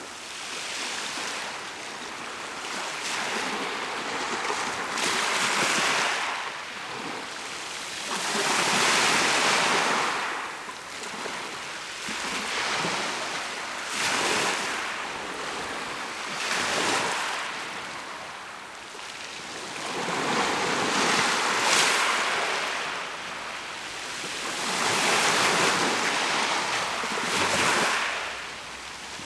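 Mediterranean sea waves breaking and washing up the shore, the surf swelling and falling away every few seconds, with some wind on the microphone.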